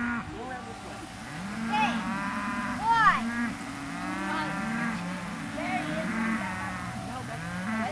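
Low animal calls, several overlapping, each rising and then holding briefly, repeated over and over.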